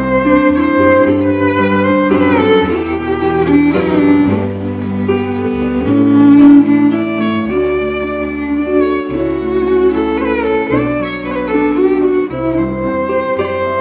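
Live Celtic band playing an instrumental passage: a fiddle carries the melody, with slides between notes, over electric bass and band accompaniment.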